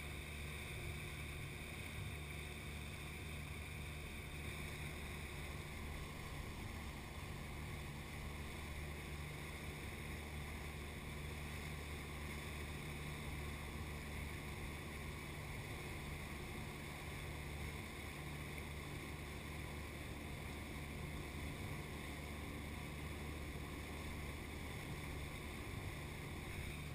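Suzuki outboard motor running steadily at cruising speed, a constant drone with the rush of the wake water over it.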